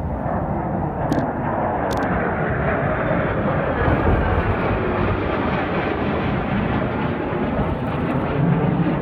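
Two Lockheed Martin F-35 fighter jets passing overhead in formation, their single F135 turbofan engines making steady, loud jet noise that swells slightly as they pass.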